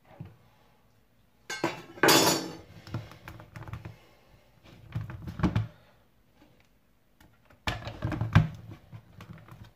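Knocks, thunks and clatter of a hand blender's plastic chopper bowl and lid being handled and fitted together on a kitchen worktop, in three bouts, with a loud short rushing clatter about two seconds in.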